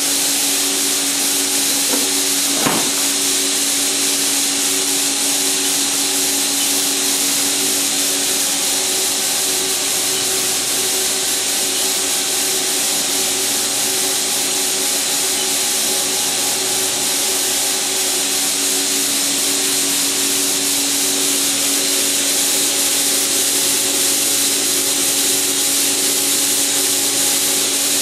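Haas SL-30T CNC lathe running: a steady hiss over a constant machine hum of several fixed tones, with a single short knock about three seconds in.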